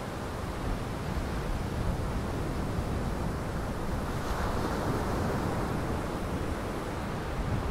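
Lake waves washing against a pier wall and rocks: a steady rushing of surf, with a brighter surge about four seconds in.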